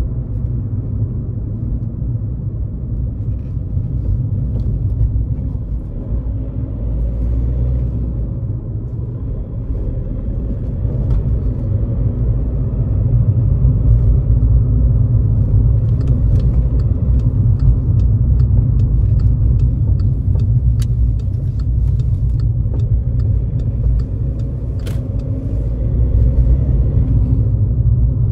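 In-cabin sound of a 2011 Škoda Fabia 1.6 TDI four-cylinder turbodiesel on the move: a steady low rumble of engine and tyres, louder from about halfway through. A run of faint, evenly spaced ticks sounds in the second half.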